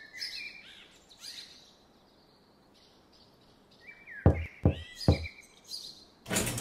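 Cartoon outdoor ambience of birds chirping softly, then three quick knocks past the middle: the toy excavator's bucket knocking on a garage door.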